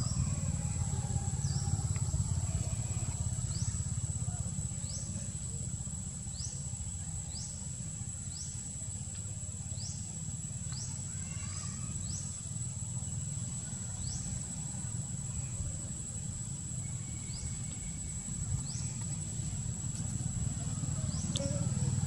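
Outdoor ambience: a steady high-pitched whine with short rising chirps about once a second, over a low rumble.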